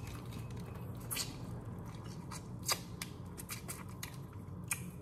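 Boiled crawfish being cracked and peeled by hand: scattered small sharp clicks and crackles of shell, the loudest about halfway through.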